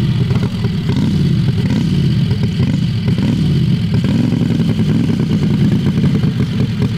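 Heavily modified Harbor Freight 670cc V-twin engine of a drag rail running under load as the rail drives over grass, its pitch rising and falling several times as the throttle is worked.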